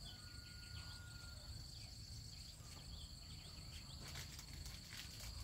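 Faint outdoor ambience of insects trilling steadily in a high, unbroken tone. Short chirps and a few clicks near the end sit over a low rumble.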